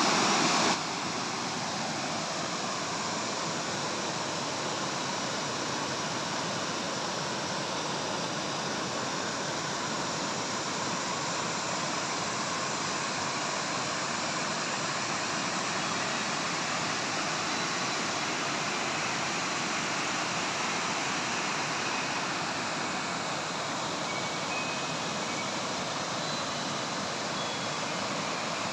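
Water pouring over the crest of a rubber dam and cascading down its face, a steady unbroken rush. It is briefly louder at the very start.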